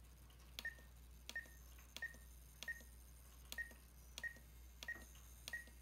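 Radio-control transmitter trim switch being clicked step by step, eight times about every two-thirds of a second. Each click is followed by a short high beep, the transmitter's trim-step tone.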